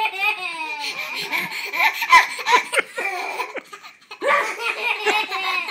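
Laughter in repeated bursts, with a short break about four seconds in.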